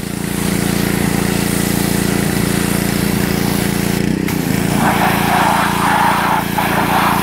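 Pressure washer running steadily, with the hiss of its water jet hitting a car. The spray cuts out briefly about four seconds in, then comes back louder as the jet blasts a wheel.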